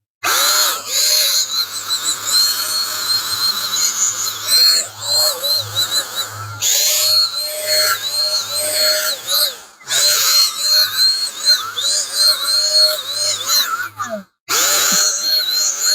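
ALLOYPOWER 700-watt HVLP paint sprayer's turbine running with a loud airy hiss while spraying paint. Its pitch keeps dipping and recovering. It cuts out briefly near the end and starts again.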